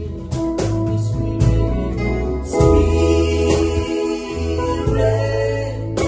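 Gospel worship song with singing over a small band of keyboard, guitar, bass and cajón, with a steady beat.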